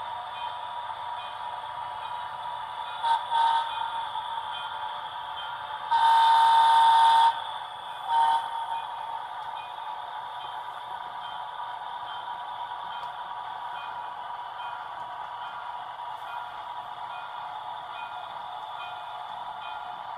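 HO scale Nickel Plate Road diesel switcher's sound system running its engine sound steadily as the locomotive moves, with horn signals: two short toots about three seconds in, then a long blast and one more short toot. The long blast is the loudest part.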